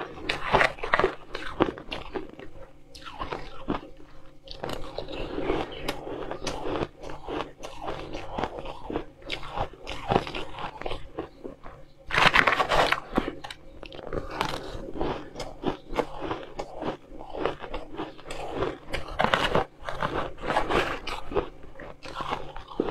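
Shaved ice crunching as it is chewed and scooped with a spoon, in rapid repeated crunches that grow loudest about halfway through and again near the end.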